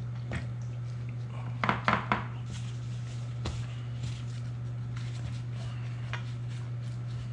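A few light clinks and taps of kitchen utensils against dishes, three in quick succession about two seconds in, over a steady low hum.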